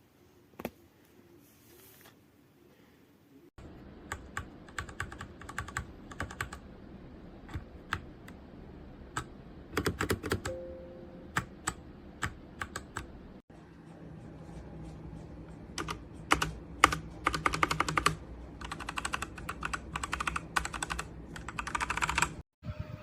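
Machenike K500 mechanical keyboard being typed on: bursts of rapid, sharp key clicks. They start about three and a half seconds in, after a near-quiet stretch broken by a single click.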